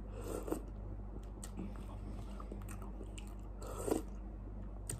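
Quiet chewing and mouth noises of a person eating instant noodles from a spoon, with two short slurps, one near the start and one about four seconds in.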